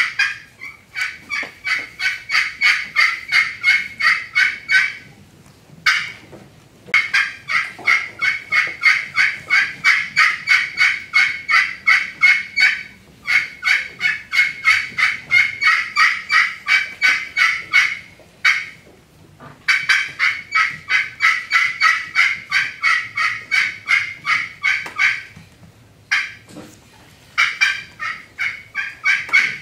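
Friction turkey call played by hand, giving a hen turkey's assembly call: long runs of loud, evenly spaced yelps, about three to four a second, in several series broken by short pauses.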